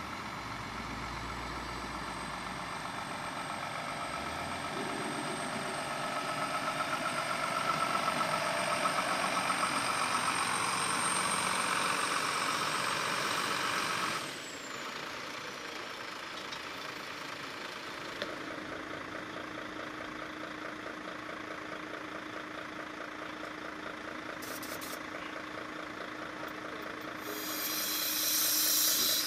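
Heavy diesel trucks idling with a faint high whine, the level dropping sharply about halfway through. Near the end, a loud burst of compressed-air hiss from a semi-trailer's air brake line.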